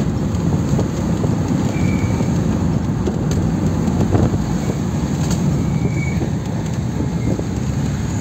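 Land Rover Defender 110 heard from inside the cab while driving: a loud, steady low engine and road rumble with frequent small rattles and knocks from the body.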